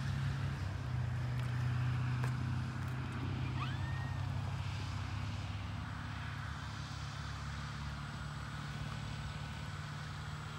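Twin electric motors and propellers of an FMS Tigercat RC model taxiing at low throttle after landing: a steady low hum that eases off slightly toward the end.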